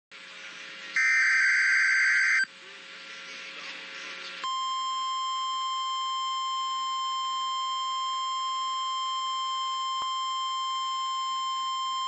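NOAA Weather Radio Required Weekly Test alert audio. About a second in comes a loud burst of SAME digital header data lasting about a second and a half, followed by faint hiss. From about four and a half seconds in, a steady 1050 Hz alert tone sounds.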